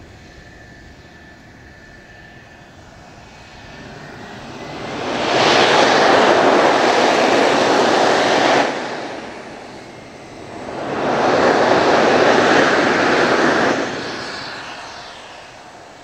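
F-4EJ Kai Phantom II's twin J79 turbojets on the taxiway: a low idle with a faint steady whine, then two loud swells of jet rush, about five and eleven seconds in, each lasting about three seconds. The first cuts off abruptly and the second dies away more slowly.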